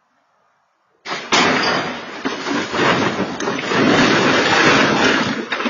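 A car crashing through roadside trees and shrubs and overturning: a sudden loud crash about a second in, then several seconds of continuous crunching and scraping that cuts off suddenly at the end.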